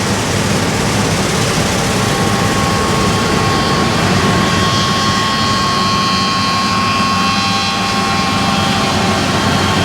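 A large engine or machine running steadily and loudly, with a low hum and a faint high whine.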